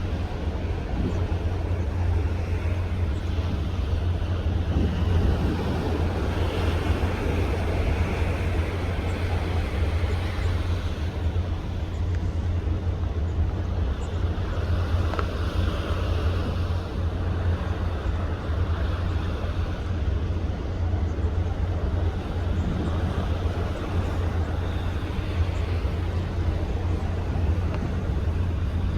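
Steady low drone of a ship's engines and machinery under way, with wind rushing over the microphone and the wash of the sea.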